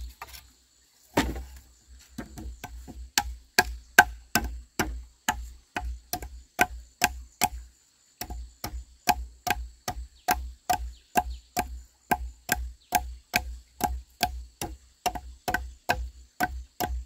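Knife blade chopping into a bamboo pole resting on a stone: a steady run of sharp strikes, about two and a half a second, with a short pause about halfway through.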